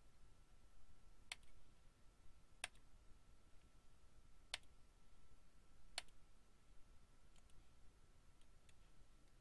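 Computer mouse clicking over near silence: four sharp clicks one to two seconds apart, then a few fainter clicks near the end.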